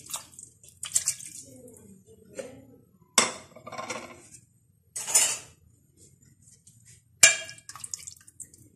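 Raw chicken pieces slid from a plate into a metal pot of water, with a few splashes and sharp clinks of metal on the pot, then a steel ladle stirring and knocking against the pot near the end.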